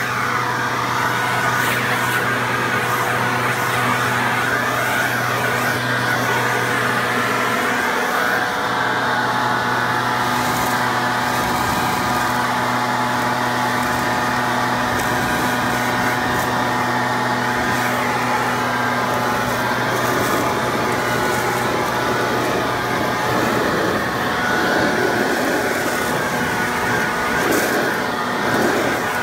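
RedMax backpack leaf blower's two-stroke engine running steadily at high throttle, with the rush of air from its blower tube, blowing leaves off roof shingles and out of a gutter. The engine note shifts a little in the last few seconds.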